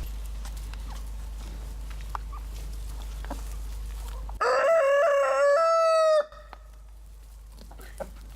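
A rooster crowing once, loudly, about halfway through: a two-second call that rises at the start, wavers, holds, and falls away at the end.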